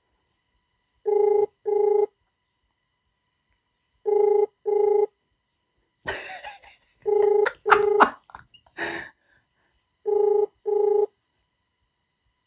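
Mobile phone ringback tone from an outgoing call that goes unanswered, heard from the handset's speaker: a double ring of two short buzzy tones in quick succession, repeating about every three seconds, four times. A few short rustling or breathy noises come between the rings around the middle.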